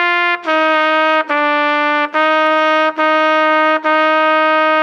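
Trumpet playing a slow, simple beginner exercise: separate steady notes about one a second with short breaks between them, the last a half note held for its full two counts.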